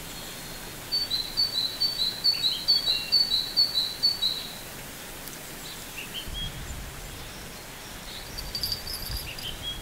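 A small songbird singing a short two-note phrase again and again, about ten times in quick succession, then a few single chirps, over a steady outdoor background of wind and river. A low rumble comes in about six seconds in.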